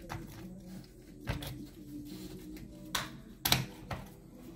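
Irregular clicks and knocks from a rotary hammer's housing and parts being handled, the sharpest about three and a half seconds in.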